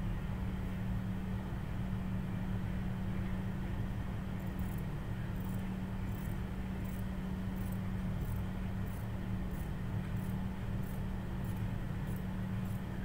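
Fabric scissors cutting cotton cloth, with light snips about every half second to second starting a few seconds in. Under them runs a steady low hum.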